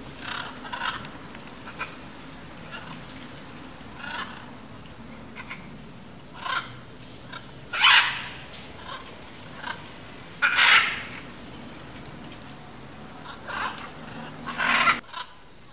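Blue-and-yellow macaws squawking in irregular single calls, three of them much louder than the rest, over a low steady hum that cuts off near the end.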